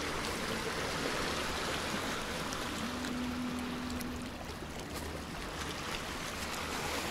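Shallow sea water washing steadily over rocks along the foot of a concrete jetty. A faint, brief hum is heard about three seconds in.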